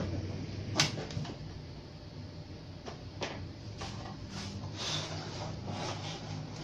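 Hands handling the plastic cabinet of a CRT television: a sharp knock about a second in, then scattered softer taps and rubbing, over a steady low hum.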